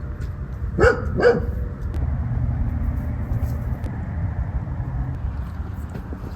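A dog barking twice in quick succession about a second in, over a steady low rumble.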